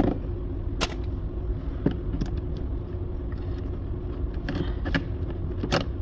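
Sharp clicks and snaps of a screwdriver working at the plastic inner door-handle trim on a Toyota RAV4 door panel, about seven in all, the loudest just under a second in and near the end. A steady low hum runs underneath.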